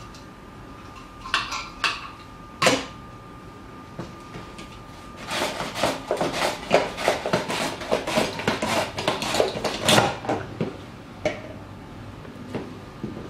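Plastic mandoline vegetable slicer in use: a few sharp knocks as its parts are handled, then about five seconds of quick, repeated strokes as a vegetable in the hand guard is pushed back and forth over the blade, each stroke a short rasping click.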